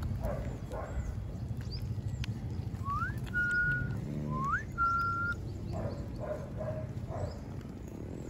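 Two whistle-like notes, each a quick rising glide into a held steady tone, about three and four and a half seconds in, over a steady low rumble.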